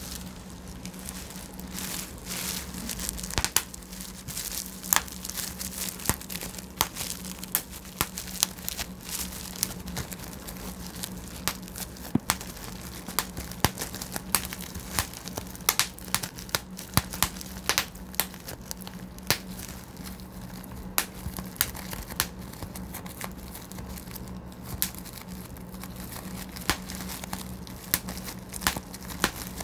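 Plastic bubble wrap being popped by hand: irregular sharp pops, sometimes several close together, amid the crinkling of the plastic sheet. A low steady hum runs underneath.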